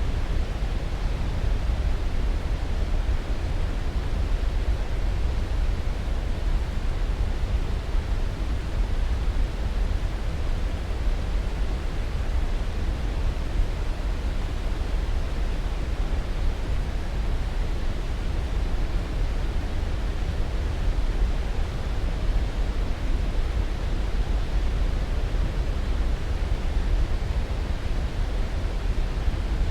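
Steady, unbroken noise with no pitch or rhythm, heaviest in the low end and thinning toward the highs, like pink noise played as a sleep aid.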